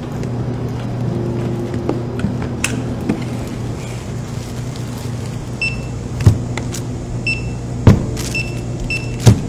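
Checkout barcode scanner giving several short high beeps in the second half as items are rung up, with three sharp knocks of goods set down on the counter, the loudest sounds. A steady low hum runs underneath.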